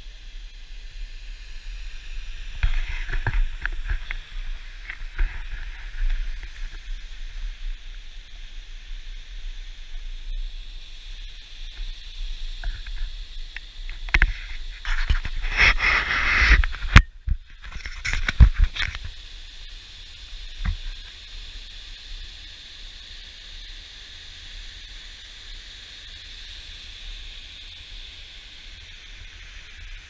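Steady rushing of a waterfall below, with wind buffeting the microphone in gusts, loudest about three seconds in and again for several seconds around the middle.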